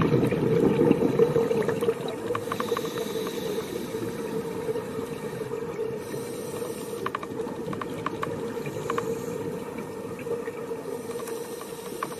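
Underwater sound picked up by a scuba diver's camera: a steady hum and hiss with scattered faint clicks, loudest in the first two seconds.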